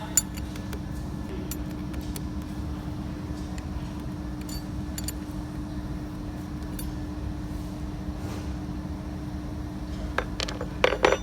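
Metal tools clinking against metal parts: scattered light clicks, then a cluster of louder clanks near the end, over a steady low hum.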